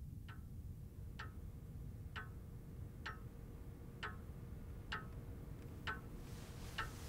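A clock ticking slowly and evenly, about one tick a second, over a low steady rumble. A soft hiss comes up near the end.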